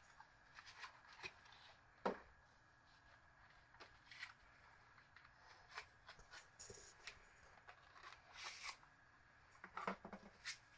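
Near silence in a small room, broken by faint scattered clicks and rustles of something being handled, a little louder about two seconds in and again near the end.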